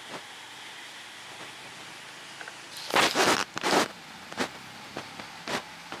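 Steady background hiss, then about three seconds in a loud rustling, scraping burst lasting about a second, followed by two short rustles.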